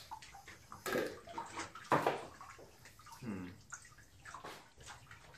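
Water sloshing and splashing in an inflatable tub, with the two loudest splashes about one and two seconds in.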